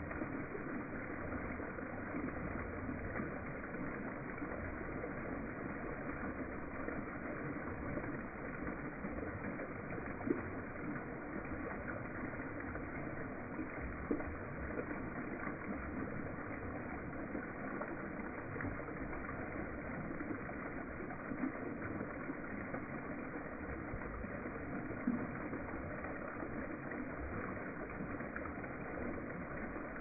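Waterfall running, a steady rush of falling water.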